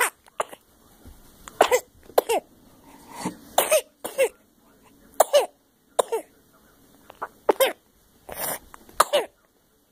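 A baby with a cold snoring through a blocked nose: a dozen or so short, high-pitched snores, several with a pitch that falls.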